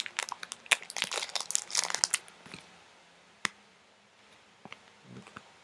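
Plastic card packaging crinkling and rustling as trading cards are handled and unwrapped, dense for about two seconds. Then a single sharp click.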